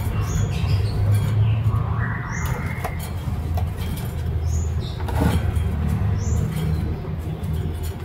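A caged konin songbird giving short, high chirps that slide downward, one every second or two, over a steady low rumble.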